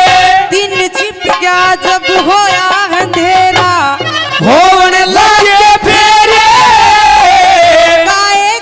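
Live Haryanvi ragni folk music: a boy's voice sings long, wavering held notes with sliding glides, loud through a PA system, over musical accompaniment.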